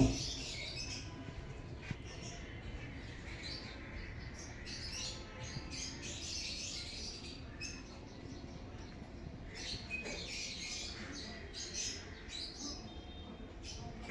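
Many small birds chirping together, with short high chirps that overlap and keep coming. A single loud knock comes right at the start.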